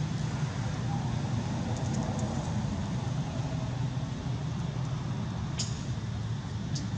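Steady low outdoor rumble, like distant traffic or wind, with two short, sharp high-pitched sounds near the end.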